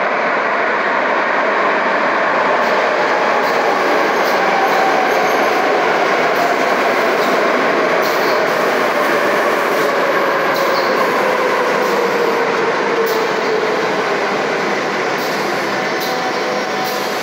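Madrid Metro Series 5000 train pulling into an underground station: a steady loud rumble of wheels on rail with scattered clicks over the rail joints, and a whine that falls steadily in pitch as the train slows.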